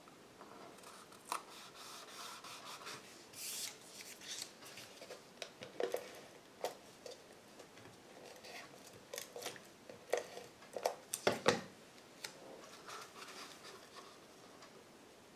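Hands handling and folding a small cardstock box: paper rubbing and rustling, with scattered light clicks and taps, the loudest cluster about eleven seconds in.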